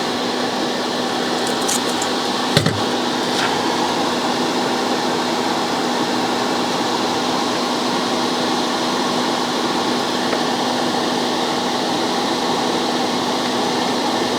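Small electric space heater's fan running steadily at a set speed, with a constant hum under the whoosh of moving air. One short click about two and a half seconds in.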